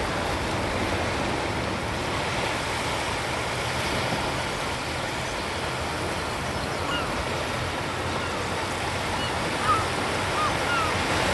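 Gentle surf washing onto a sandy beach: a steady hiss of small breaking waves, with a few faint short high chirps near the end.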